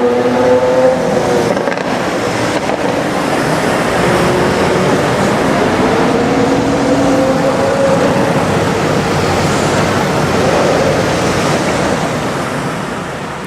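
Lamborghini Aventador S Roadster's V12 engine running loudly under way, its pitch rising and falling, mixed with a broad rush of road noise. It fades away near the end.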